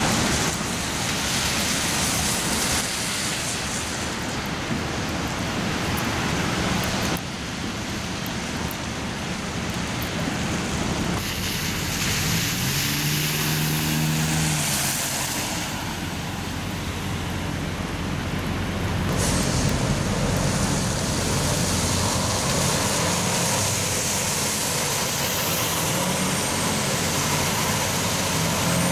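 Street traffic on wet, slushy pavement: a steady wash of tyre and road noise, with a vehicle's engine passing about halfway through and a truck near the end.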